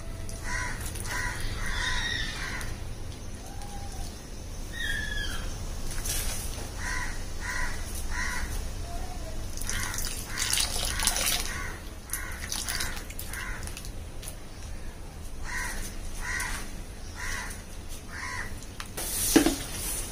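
A crow cawing in several short runs of four or five calls, over a steady low rumble. A sharp knock near the end.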